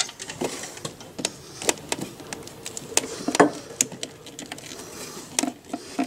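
Irregular clicks and light knocks of hands working a rubber clutch line onto the freshly cut outlet of the plastic brake fluid reservoir, with one louder knock about halfway through.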